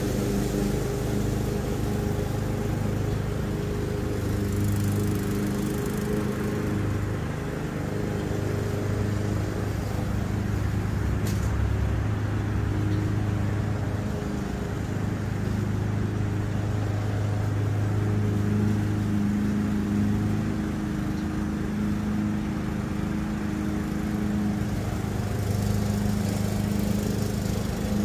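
Walk-behind lawn mower's small engine running steadily as it is pushed through long grass, its hum rising and falling slightly in strength.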